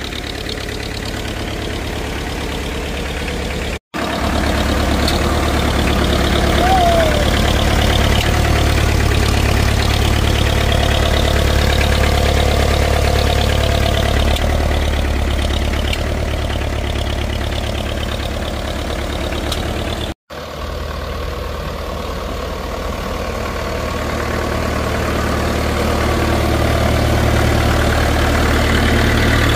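International B275's four-cylinder diesel engine idling steadily.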